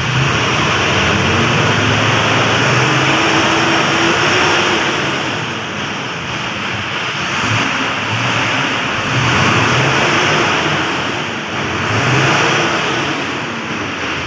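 Isuzu six-cylinder diesel truck engine running and accelerating, its loudness swelling and easing several times. It is running again after a suction control valve fault was cleared.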